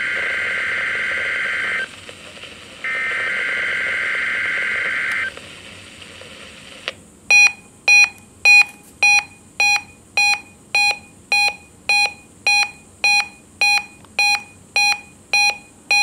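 Two bursts of SAME digital header data tones from a NOAA Weather Radio broadcast, each about two seconds long, encoding a Required Weekly Test. Then, about seven seconds in, the Reecom SAME weather alert radio starts a steady electronic beeping, about two beeps a second, as it sounds its alert for the test.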